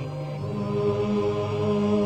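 Male voice reciting the Quran in melodic tajweed style, holding long drawn-out notes, with the pitch stepping up about half a second in.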